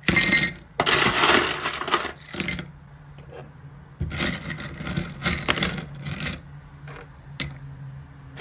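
Small hard objects clinking and scraping as they are handled, in three bursts of a second or two each with a few single clicks between them.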